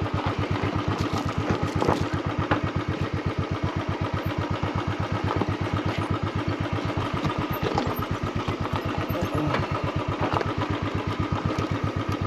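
Motorcycle engine running at low revs with an even beat of about eight pulses a second while the bike creeps down a rough, steep trail, with a few light knocks and rattles from the rocky ground.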